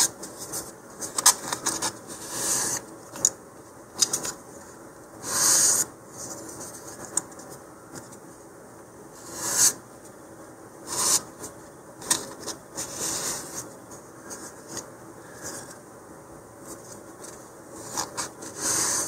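150-grit sandpaper rubbing lightly along the edges of thin balsa fins in short, irregular strokes, knocking off the small nubbins left where the fins were cut free.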